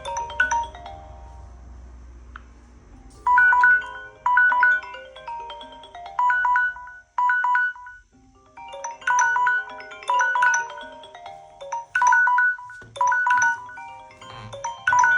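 Smartphone alert tone playing a short melodic phrase over and over. It starts about three seconds in, breaks off for about a second near the middle, then resumes with denser, louder phrases.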